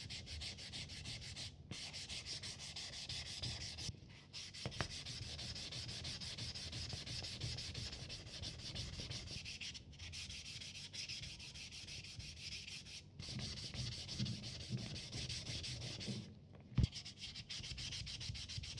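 Fast back-and-forth hand sanding of a rusty metal cover plate from an Olympus Pen EE-3 camera, a steady scratching rub broken by a few brief pauses. A single sharp knock near the end is the loudest sound.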